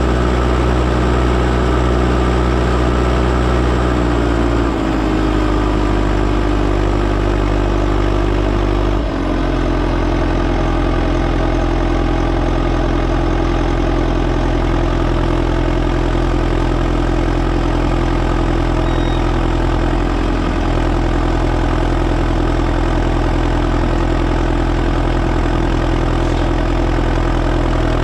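Diesel engine of a Volvo BM 6300 backhoe loader running steadily as the machine drives, its engine note shifting down in steps about four and nine seconds in.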